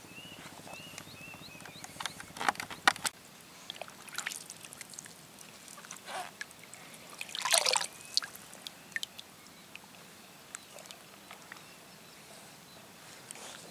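Small water splashes and drips with light clicks as a pole-fishing float rig is handled, baited and swung out onto the water. The loudest is a short splash about seven and a half seconds in. A bird calls a few short chirps at the start.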